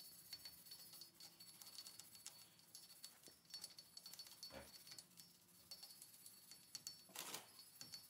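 Near silence, with faint scattered scratching and clicks from a wire brush scraping rust off a truck's wheel hub face.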